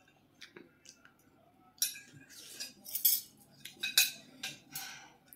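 Metal forks scraping and clinking on ceramic plates as the last of the noodles are scooped up. Light clicks at first, then a run of louder scrapes from about two seconds in.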